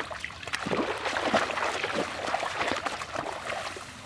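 Shallow river water splashing and sloshing as legs wade and hands drag a heavy clump of water hyacinth through it. The splashes come thick and irregular, busiest in the middle and easing off near the end.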